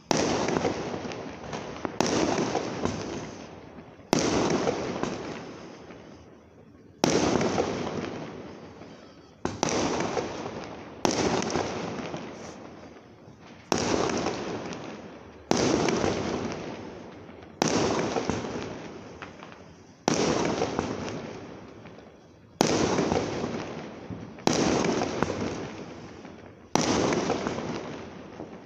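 Fireworks bursting one after another, about every two seconds. Each is a sudden bang that fades away over a second or two.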